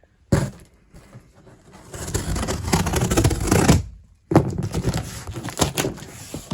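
A large cardboard box being handled and opened: a knock, then about two seconds of scraping or tearing, then more rustling with sharp clicks.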